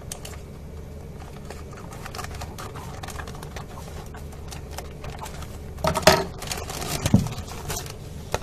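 Scissors snipping through a plastic courier mailer bag in a run of small clicks, then the bag's plastic crackling loudly as it is pulled open, about six seconds in.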